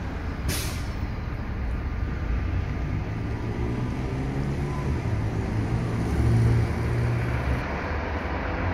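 Street traffic: car engines and tyres going past steadily, with one vehicle passing closer and louder about six seconds in.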